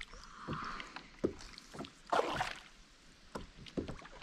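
Water splashing and dull knocks as a fish is brought to a landing net beside a plastic kayak: a few short knocks on the hull, and a louder splash about two seconds in.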